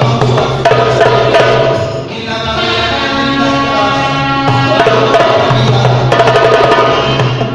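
Music with hand drumming and a sung, chanting vocal line over a steady low bass.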